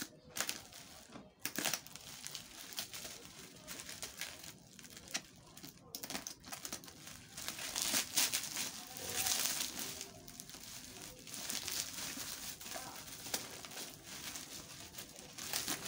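Black plastic bubble-wrap packaging crinkling and rustling in a stream of small crackles as a parcel is cut and pulled open with a box cutter.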